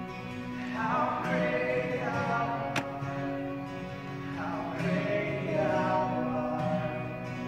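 Sung music with accompaniment: long held notes with vibrato over steady lower tones. A brief click about three seconds in.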